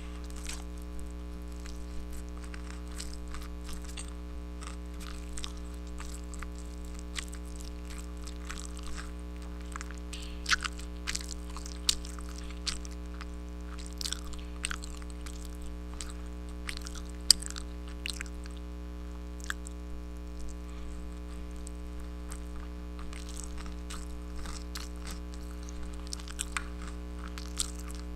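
Close-miked chewing and biting of food, with irregular sharp crunches, busiest about a third of the way in, and a single loud crack a little past the middle. A steady low hum or drone runs underneath.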